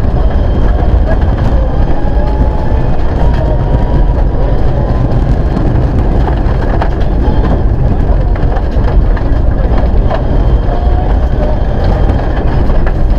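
Loud in-cabin noise of a Mitsubishi Lancer Evolution IX rally car at speed on gravel: the turbocharged four-cylinder engine under load, its pitch gliding up and down as the driver works through the gears, over the constant rush of tyres on loose gravel with scattered clicks of stones striking the underbody.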